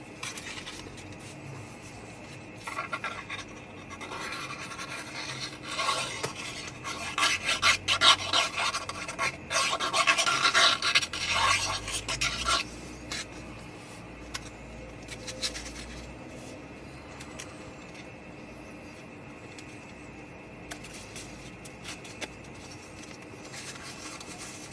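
Cardstock pieces being handled, rubbing and scraping against each other and the work surface in scratchy bursts, busiest in the first half. A faint steady hum runs underneath.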